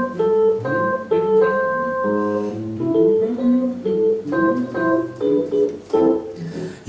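Instrumental introduction to a song, played live on an electronic keyboard with an electric guitar: a run of changing chords, with the keyboard to the fore, before the singing comes in.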